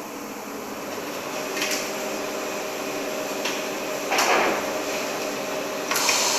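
Longitudinal seam welding machine running with a steady hum and hiss, broken by several short metallic clunks and knocks, the loudest a little past four seconds in.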